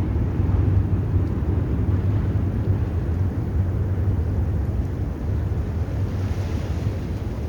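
Wind buffeting the microphone in a snowstorm: a steady low rumble with a light hiss above it.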